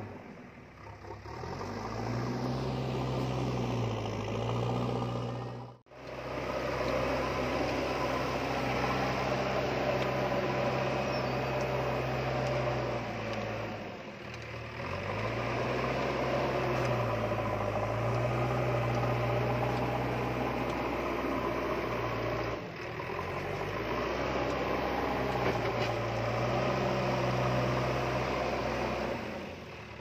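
A large engine running. Its revs rise and then settle into a steady hum, and it breaks off briefly three times and starts again each time.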